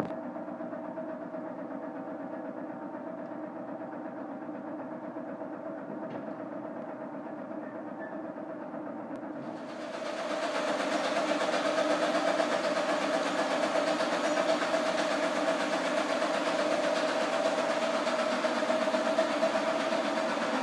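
Vacuum metallizing machine running: a steady mechanical drone with a constant hum, the sound of its pumps and rotating part rack. About halfway through it turns louder and brighter, with more hiss.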